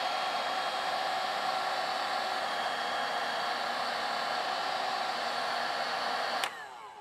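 Ryobi One+ 18V cordless heat gun running, a steady rush of blown air with a motor whine over it. About six and a half seconds in it is switched off with a click and the fan winds down with a falling whine.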